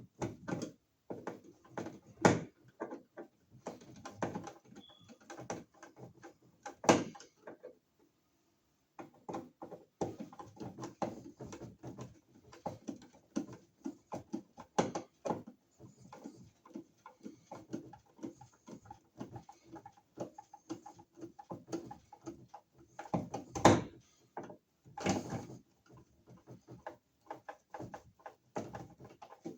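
Irregular clicking, scraping and knocking of a wall receptacle being pushed back into its electrical box and screwed down, with a few sharper knocks and a short break about eight seconds in.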